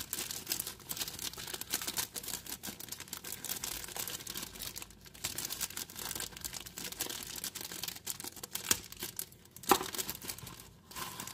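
Thin clear plastic zip-lock bag crinkling and rustling as hands open it and work a small figurine out of it, with a few sharper crackles, the loudest near the end.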